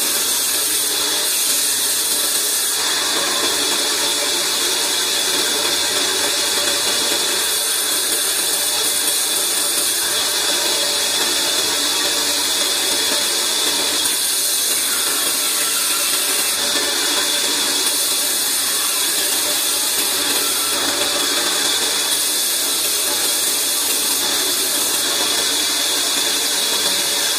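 Large vertical band saw with big open wheels running and ripping old timber lengthwise into boards: a loud, steady, high-pitched whir that does not break.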